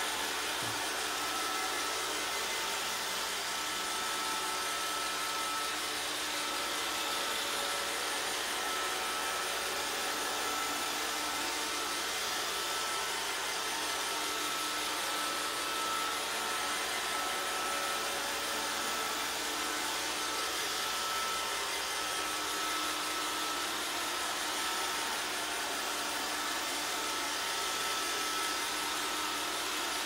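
iRobot Roomba robot vacuum running its spot-cleaning cycle: a steady whir of its vacuum motor and brushes with a thin, steady high whine, unchanging in loudness.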